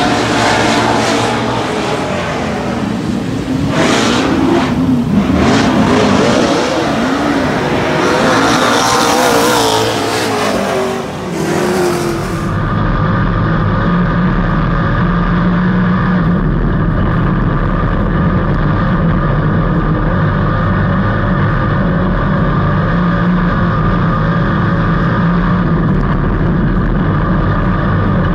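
Dirt-track race car engines revving and passing at speed, their pitch rising and falling. About twelve seconds in the sound switches abruptly to a steady race-car engine drone held at a constant pitch.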